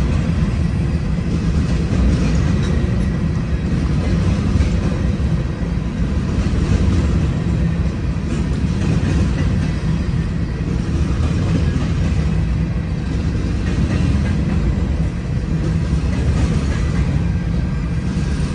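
Norfolk Southern grain train of covered hopper cars rolling past, a steady noise of steel wheels on the rails.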